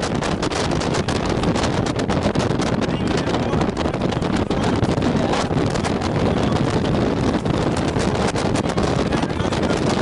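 Wind buffeting the camera microphone: a steady, loud rumble with frequent crackling pops.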